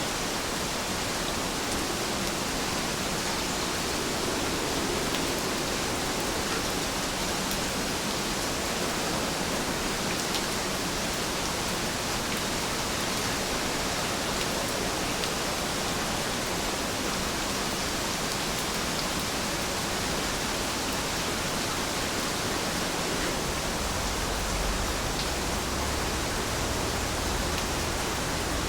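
Steady rainfall, an even hiss of falling rain with faint drop ticks, and a low rumble joining in about three-quarters of the way through.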